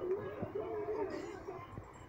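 A faint voice murmuring, with a soft click or two.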